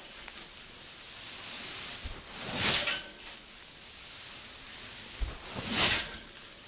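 Two bounces on a sand-covered trampoline mat, about three seconds apart: each gives a short low thump, then a loud hissing rush of sand thrown up off the mat.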